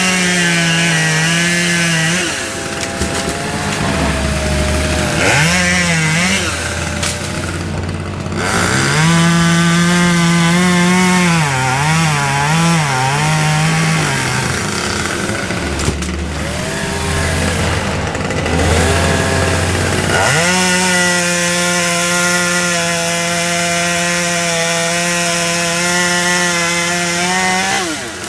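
Chainsaw revving to full throttle and dropping back to idle several times. It is held high for a few seconds at a stretch, with the pitch wavering while it is under load in a cut. The longest run at full revs comes in the second half.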